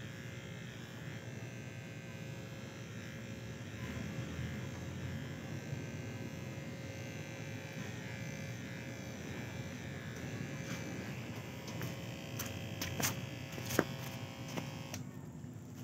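Electric hair clipper running steadily during a haircut, with a few sharp clicks near the end, and then the clipper stops.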